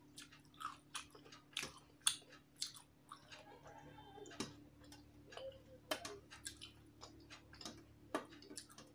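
A person chewing a mouthful of rice and curry eaten by hand, with irregular sharp wet mouth clicks. Fingers mix rice on a steel plate.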